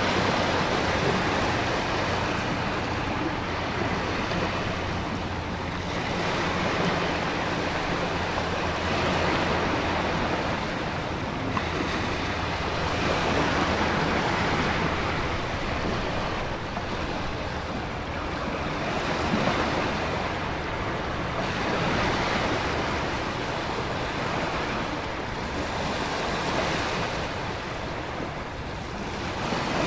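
Stormy sea with waves breaking against a rocky shore and wind blowing, a continuous rushing surf that swells and eases every few seconds.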